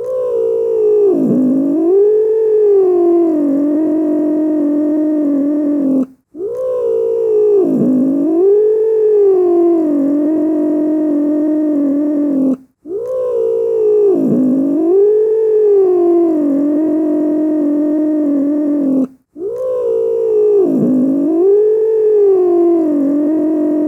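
A cat growling: one long, wavering growl that dips and rises in pitch and then holds. The same six-second call is repeated four times with brief gaps between.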